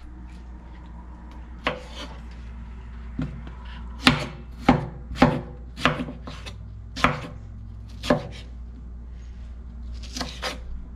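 Kitchen knife slicing a tomato on a wooden cutting board: about a dozen uneven knocks of the blade meeting the board, the loudest in a quick run from about four to seven seconds in.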